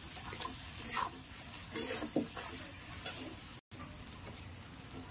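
Spatula stirring and scraping onion, ginger paste and ground spices frying in hot oil in a pan, over a steady sizzle. The scraping strokes come about once a second, and the sound cuts out for an instant about three and a half seconds in.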